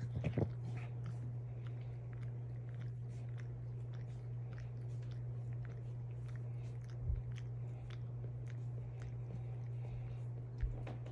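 A dog chewing: many small wet clicks and light crunches over a steady low hum, with a soft thump about seven seconds in and another near the end.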